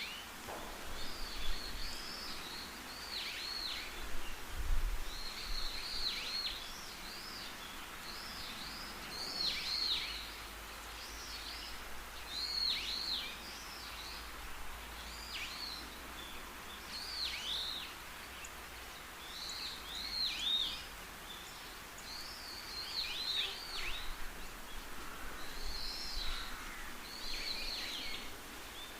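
Bird calls repeating every second or two, each a short high note that rises briefly and then drops in pitch, over a steady background hiss.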